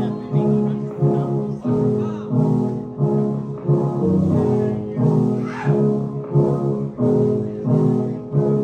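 Live band playing an instrumental groove with a steady beat, a pattern repeating about every two-thirds of a second, from upright bass, drums and keyboard samplers.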